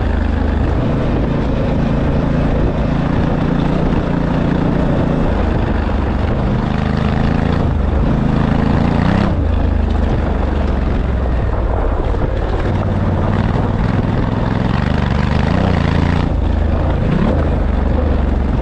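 A large engine running steadily and loud, with a deep low note and a couple of brief small rises in pitch.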